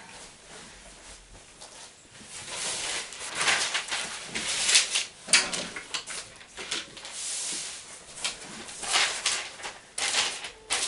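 A plastic shower curtain and a black sheet rustling and crinkling as they are smoothed out and laid flat on the floor. The rustles start about two seconds in and come in uneven, louder bursts.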